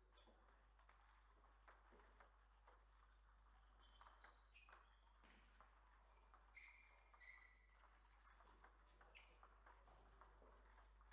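Faint table tennis play: the celluloid ball clicking off rackets and table in irregular runs, with several short high squeaks between them.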